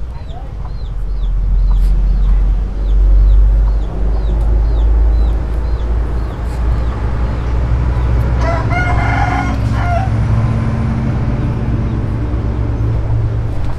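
A rooster crows once, about eight and a half seconds in, over a steady low rumble. A faint high chirp repeats about twice a second through the first half.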